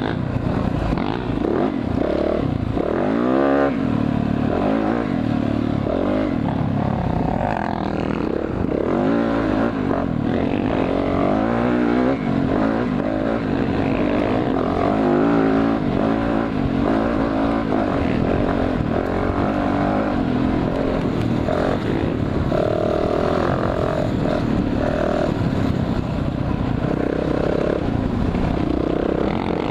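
Yamaha dirt bike engine running close up from on the bike while trail riding, its revs repeatedly rising and falling as the throttle is opened and closed.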